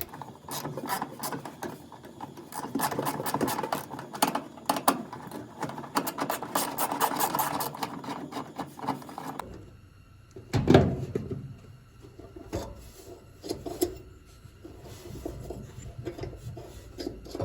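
Scraping and rubbing of metal and plastic parts being handled inside a dryer cabinet, with many small clicks. Partway through it gives way to a few separate knocks.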